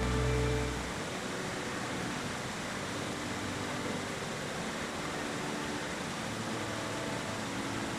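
Background music stops about a second in, leaving a steady rushing background noise with no distinct events.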